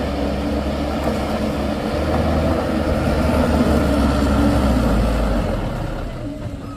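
Motor vehicle engine running close by with a deep, steady note, growing to its loudest about four seconds in, then fading away as the vehicle moves off.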